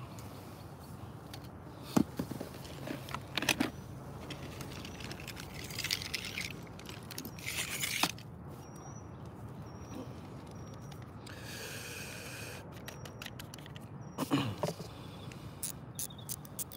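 Scattered knocks, clicks and scrapes of gear being handled, with a short whirr a little past the middle and short high chirps repeated about twice a second.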